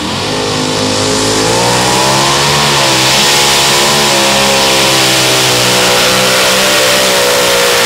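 Loud supercharged engines of a modified pulling tractor at full throttle, dragging the weight sled down the track. The pitch climbs over the first second or so, sags briefly about three seconds in, then holds steady.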